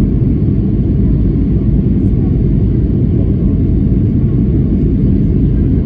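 Steady loud rumble of a Boeing 757-200's engines and rushing air, heard inside the passenger cabin on short final approach just above the runway.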